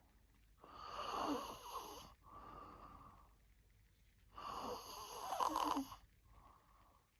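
A sleeping woman snoring: two long snores about four seconds apart, each followed by a shorter, quieter breath.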